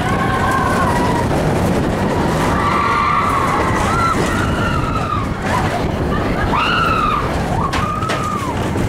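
Mine-train roller coaster running fast along its track: a loud, steady rumble of wheels and rushing air. Several high squeals rise and fall in pitch over it, about halfway through and twice near the end.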